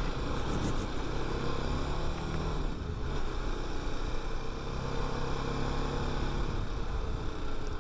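TVS Apache RR 310's single-cylinder engine running steadily at a constant cruising pitch while riding.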